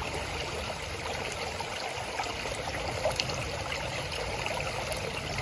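A creek running steadily, an even rush of water with small trickling ticks.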